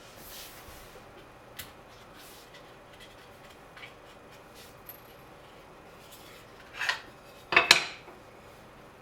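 Steel chef's knife blade clinking and scraping: a few light ticks, then two louder sharp metallic scrapes near the end, the second the loudest.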